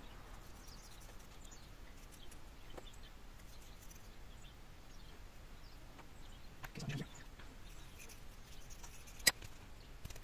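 Quiet handling of a sand mould: faint scraping of a hobby knife through packed green sand, with a soft thump about seven seconds in and one sharp click near the end.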